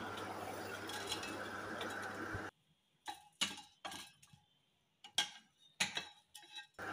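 Wooden spatula knocking and scraping in a non-stick wok while stirring whole dried red chillies: about eight separate short taps in the last few seconds. Before them, a steady low hum that cuts off suddenly.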